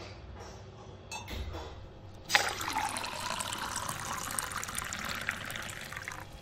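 Hot milk tea being poured into a glass mug: a steady splashing pour that starts suddenly about two seconds in.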